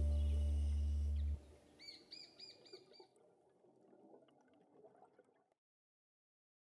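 The closing music's held chord carries on and cuts off about a second and a half in. A faint, rapid series of about eight bird chirps follows, then faint background hiss that stops dead near the end.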